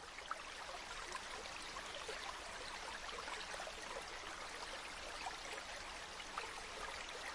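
Running water of a small stream, a steady babbling flow with many small gurgles and trickles, fading in at the start.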